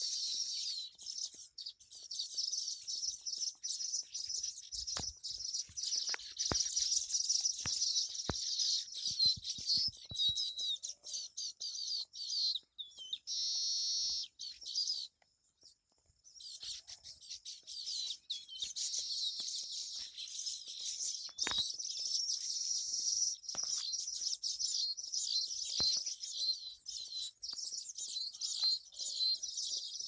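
A colony of baya weavers chirping and chattering continuously, many birds at once, in high, rapid, overlapping calls. The chorus breaks off for about a second near the middle, then resumes.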